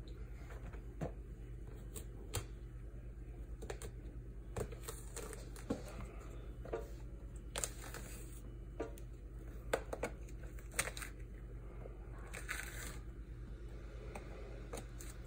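Thick pomelo pith being torn off the fruit by hand: irregular tearing, with sharp snaps scattered through.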